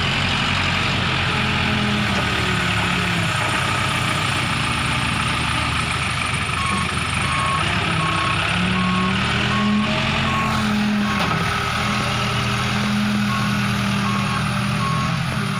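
Case backhoe loader's diesel engine running under load, its pitch rising and falling as the hydraulics work. About seven seconds in, a reversing alarm starts beeping steadily, roughly one and a half beeps a second.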